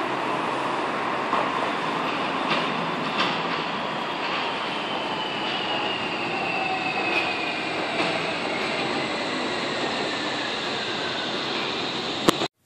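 Wuppertal Schwebebahn suspension railway car running along its overhead steel track: a steady rail rumble with a high whine that slowly falls in pitch and a few clicks. It cuts off suddenly near the end.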